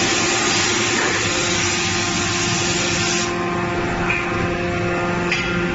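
Steady hum of factory machinery on a forging line, with a loud hiss that cuts off suddenly about three seconds in.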